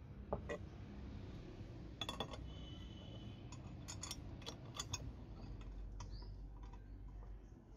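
Steel parts of a hand-press juicer clicking and clinking as they are fitted together: a cluster of sharp taps about two seconds in with a brief metallic ring after it, then more scattered clicks, over a low steady rumble.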